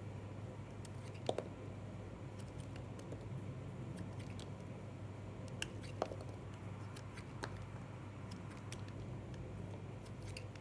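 A knife cutting into dry soap: a few sharp, crisp cracks and clicks, the loudest just over a second in and again around six seconds, over a steady low hum.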